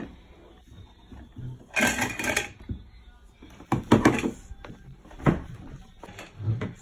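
Plastic toy kitchen cups and dishes being handled: a few separate knocks and rattles.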